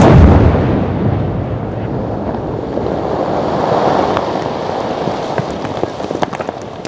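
Controlled detonation of WWII 270 mm artillery shells from a German Nussknacker beach obstacle: one sharp blast, then a long rumble that slowly fades. Scattered ticks of falling debris come near the end.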